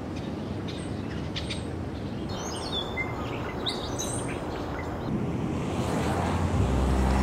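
Birds chirping in short calls over steady outdoor background noise, with music starting near the end.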